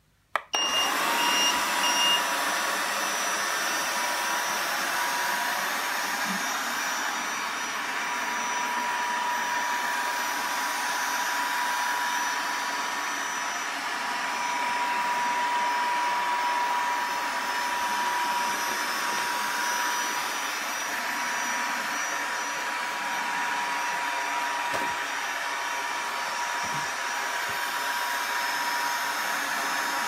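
Acro robot vacuum cleaner switched on at its top button: a click and a quick row of beeps, then its motor starts and runs steadily with a whir and a thin whine.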